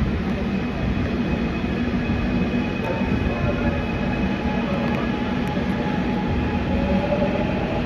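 Gwangju subway train running between stations, heard from inside the car: a steady rumble with faint whining tones over it.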